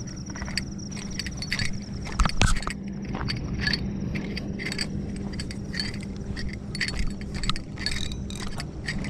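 Fishing rod and reel being handled close by: irregular small clicks and rattles, with one sharper knock about two and a half seconds in, over a steady low hum.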